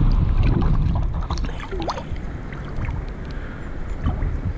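Small waves of lake water sloshing and splashing around a camera at the waterline, with a low rumble of water and wind on the microphone. The rumble eases after about the first second, and scattered sharp drips and splashes run through.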